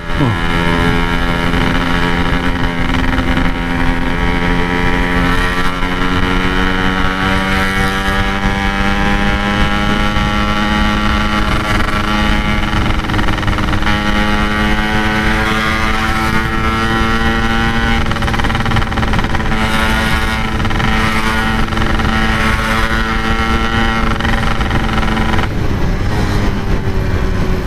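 Yamaha RX-King two-stroke single-cylinder engine through an aftermarket stock-style tin exhaust, heard from the rider's seat while cruising at steady revs. The pitch rises a little early on, then holds, and drops about 25 seconds in as the throttle eases off.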